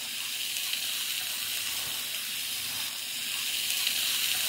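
Jalapeño peppers, tomatoes, onion and garlic frying in hot oil in a pan: a steady sizzling hiss.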